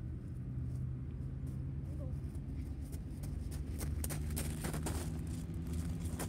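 Low, steady engine rumble with a few faint clicks around the middle.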